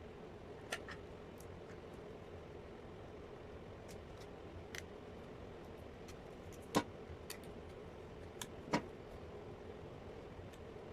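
Scattered sharp clicks and taps of small hard parts being handled during hair clipper repair, the loudest two about two-thirds of the way through and again two seconds later, over a steady low hum.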